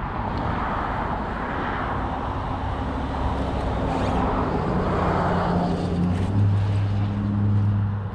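Cars passing on the road: tyre noise swells and fades twice, and a steady engine hum grows louder over the last few seconds.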